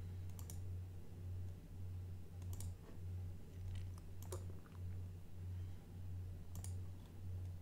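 A handful of sharp, separate computer mouse clicks, spaced a second or more apart, over a low, wavering background hum.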